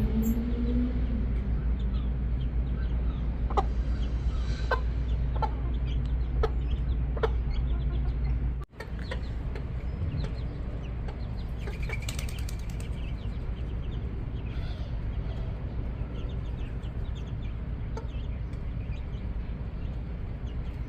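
Backyard chickens clucking in short, scattered calls over a steady low rumble.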